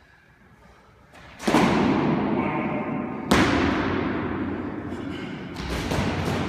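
Sparring practice swords striking, with sharp hits about a second and a half in and again about two seconds later, then more knocks near the end as the fighters clash. Each hit rings out in a long echo off the hard walls of a racquetball court.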